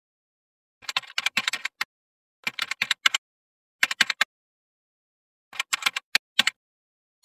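Computer keyboard typing: quick runs of keystrokes in four short bursts with brief pauses between them.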